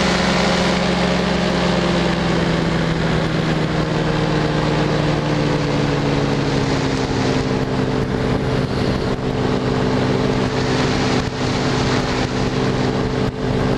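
Powered parachute's engine and propeller droning steadily in flight. The engine speed eases down slightly over the first few seconds, then holds level.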